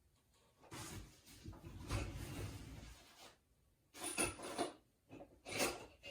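Rummaging through objects: a long stretch of rubbing and shuffling, then a few shorter scrapes and knocks near the end.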